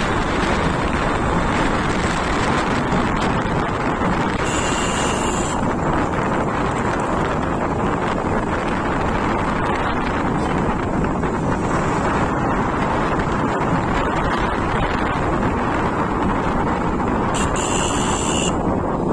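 Steady wind rushing over the microphone of a camera on a moving motorcycle, with the bike's running engine and road noise under it. Two short high-pitched sounds break in, about five seconds in and again near the end.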